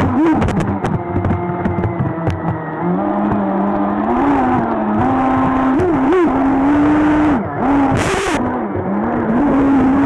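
Onboard sound of an RC jet boat's battery-powered electric motor and water-jet drive whining, its pitch rising and dipping as the throttle is feathered, over rushing and splashing water. A quick run of clicks and knocks comes in the first two seconds, and a short hiss of spray about eight seconds in.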